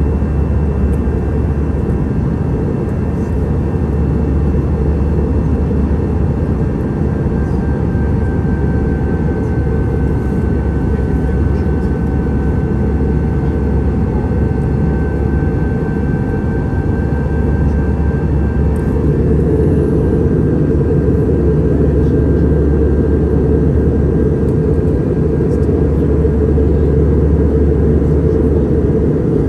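Steady jet airliner engine drone heard from inside the passenger cabin: a low rumble with faint steady whining tones above it.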